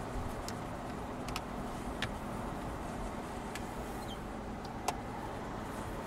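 Rear-seat fold-out tables of a Mercedes-Maybach S600 being unfolded, their hinges and latches giving a handful of sharp clicks, the sharpest about five seconds in, over the steady road noise inside the moving car's cabin.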